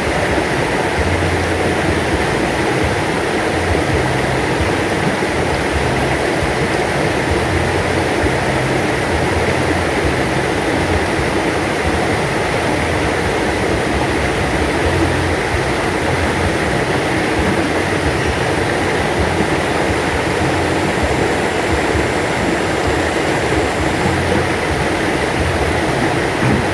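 A river stream flowing gently: a steady, even rush of moving water.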